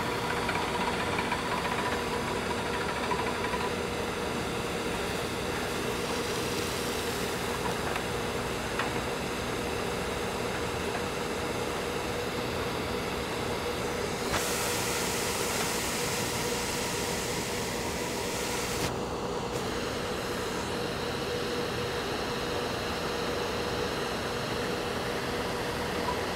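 Truck-mounted water-well drilling rig running steadily, a constant engine drone with a steady whine. A louder hiss comes in about 14 seconds in and stops about five seconds later.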